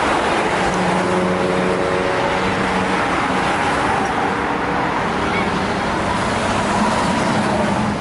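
Road traffic passing steadily, with the running of large vehicle engines heard as faint steady hums that come and go.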